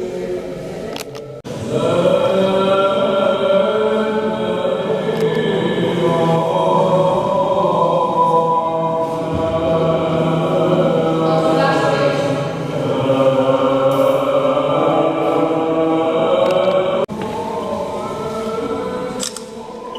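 Slow choral church chant with long held notes. It comes in abruptly about a second and a half in and breaks off sharply near the end, giving way to quieter voices.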